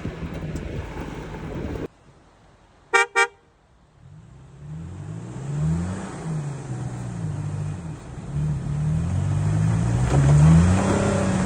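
A rushing noise cuts off suddenly, then two quick horn toots sound. A vehicle engine then comes in, revving up and down, louder near the end.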